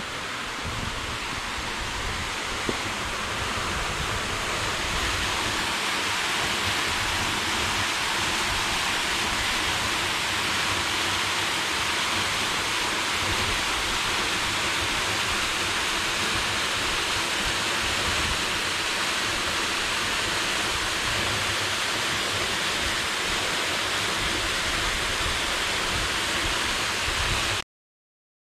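Waterfall cascading down rock slabs: a steady rush of water that grows louder about four seconds in and cuts off suddenly near the end.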